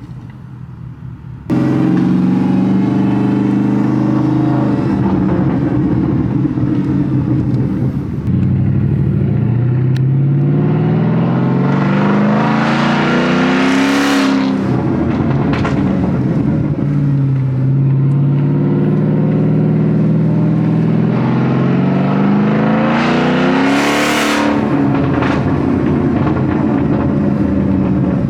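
2006 Porsche Cayenne S's 4.5-litre V8 running through a muffler-delete exhaust. It comes in suddenly about a second and a half in, idles, and is then revved twice, each time climbing slowly for about five seconds before dropping back. A few sharp pops come near the top of each rev and as the revs fall.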